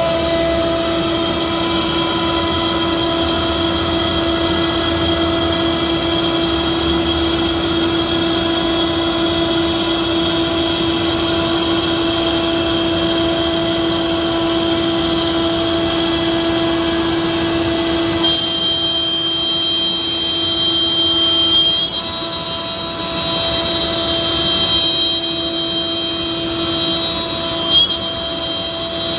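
CNC router spindle running with a steady whine as the bit cuts through a wood sheet. About two-thirds of the way through the pitch pattern shifts and a higher whine comes up as the cut changes.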